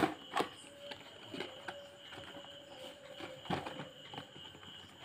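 Paperboard hair-clipper box being opened by hand: a sharp snap of the end flap at the start, then a few softer knocks and scrapes of cardboard as the box is handled. Crickets chirr steadily behind it.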